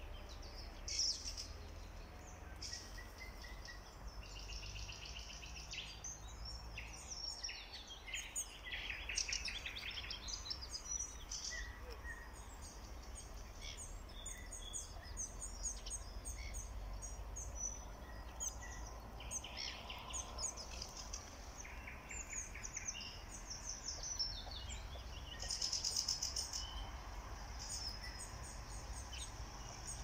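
Several songbirds singing at once in the treetops: overlapping trills, chirps and short warbled phrases, with a low steady rumble underneath.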